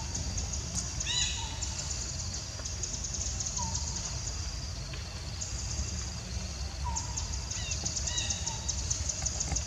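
Forest ambience: a steady high, rapidly pulsing trill like insects, over a low rumble, with a few short chirping animal calls scattered through, about a second in, near the middle, and twice more toward the end.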